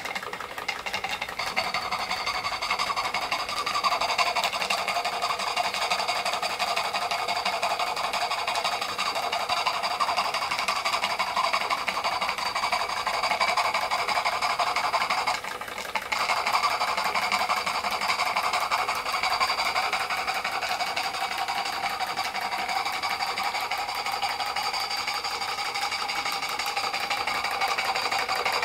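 Märklin 16051 twin-cylinder compound stationary model steam engine running on live steam, a fast, steady mechanical clatter from its cylinders, valve gear and crankshaft. The sound dips briefly about halfway through.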